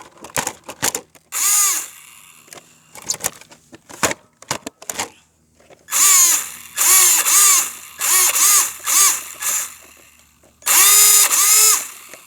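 RC car's motor whining in short bursts, about seven times, the pitch rising and falling with each press of the throttle, with sharp clicks in between. The car no longer drives when throttled: something in it is broken.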